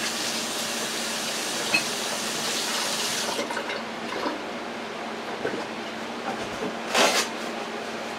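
Kitchen sink tap running as hands are washed under it, shut off about three and a half seconds in. Then a few light clicks and a brief rush of noise near the end.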